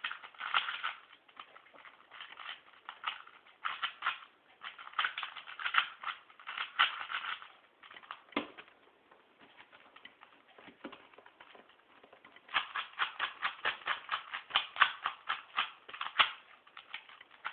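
A plastic 2x2 speed cube turned quickly by hand: rapid clacking of the layers, in bursts. The turning pauses for a few seconds midway, then comes a fast run of turns near the end.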